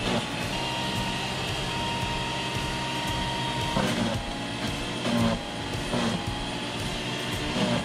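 Sun Joe 15-amp electric leaf mulcher running steadily, shredding thawed pogies (menhaden) into chum, with a faint motor whine and a few louder knocks as fish go through the blades.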